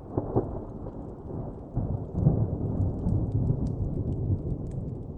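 Thunder rumbling low and unevenly, swelling about two seconds in and rolling on. A fire's faint crackle ticks over it.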